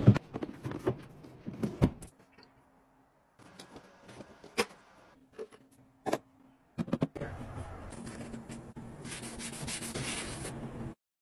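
A plastic drawer slides and knocks several times. Then come a few sharp clicks from the latch and lid of a plastic storage box. Then a sponge scrubs over a white sneaker for about four seconds, a steady rubbing that cuts off suddenly near the end.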